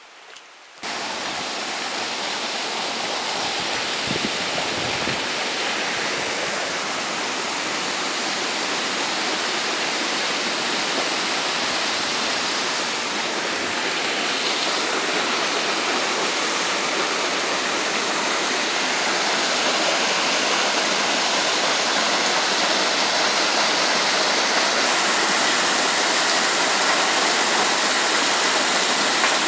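Steady rush of running water from a stream cascading down a rock chute, starting abruptly about a second in.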